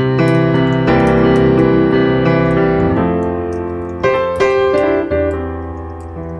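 Background piano music, with chords struck about once a second and left to ring.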